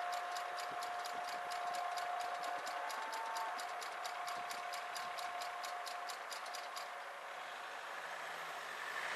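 Level-crossing warning bell ringing in rapid, even strokes, about four a second, while the half barriers rise, then stopping about seven seconds in as the barriers reach upright and the crossing clears. A rising rush of noise follows near the end.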